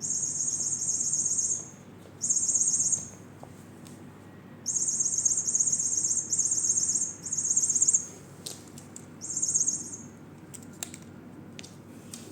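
Electronic sound-making cat toy giving out bursts of high, trilling bird-like chirps. There are about six bursts of a second or so each, separated by short pauses, and a few light taps or clicks come near the end.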